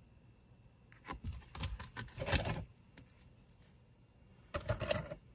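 Hand rummaging through a wooden box of costume jewelry: metal brooches and pieces clinking and rustling against each other, in two short bouts of handling.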